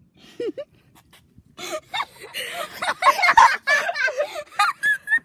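Boys' voices talking and laughing. A brief vocal sound comes about half a second in, then overlapping chatter and giggling from about one and a half seconds on.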